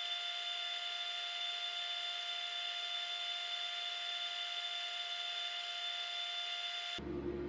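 A steady high-pitched electrical whine over hiss, which cuts off abruptly near the end and gives way to a lower, steady hum.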